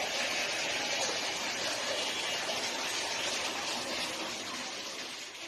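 Steady, water-like rushing noise that fades out near the end.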